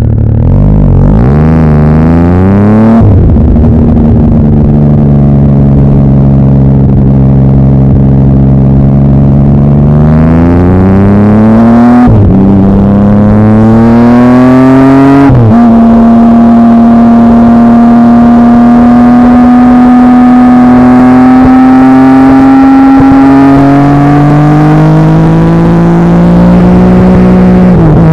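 Triumph Speed Triple three-cylinder engine through Pipewerx aftermarket exhausts, loud, its revs climbing and then dropping sharply several times, as at upshifts while accelerating through the gears, with long steady stretches in between.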